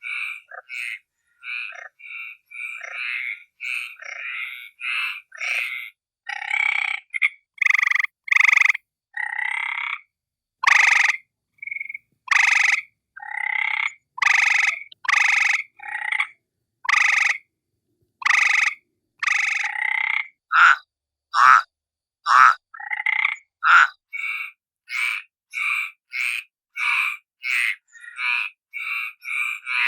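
A frog croaking over and over in short, separate calls with silence between them: about two quick calls a second at first, longer and more widely spaced calls through the middle, and quick calls again near the end.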